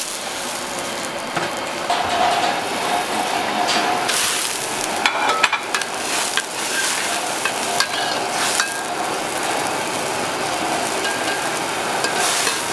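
Noodles sizzling in hot oil in a wok while a metal spatula stirs and scrapes them, with a few sharp clinks of the spatula against the pan.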